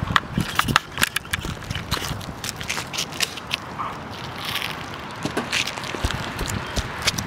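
Irregular clicks, crackles and scrapes throughout, with no steady tone.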